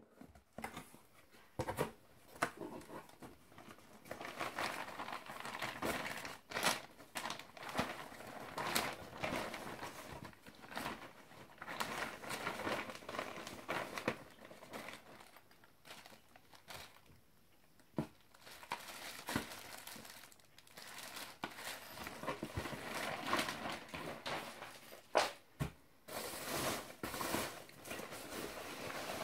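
Hands unpacking a cardboard parcel: cardboard and packing tape handled, a plastic bag crinkling, and foam packing peanuts rustling as a hand digs through them near the end. Irregular rustling with a few sharp knocks.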